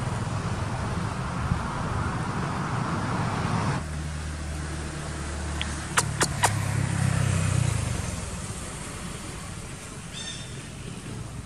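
Background noise of a motor vehicle running. A steady rushing sound switches abruptly about four seconds in to a lower, steady engine hum, with three sharp clicks close together about six seconds in. The hum then fades somewhat.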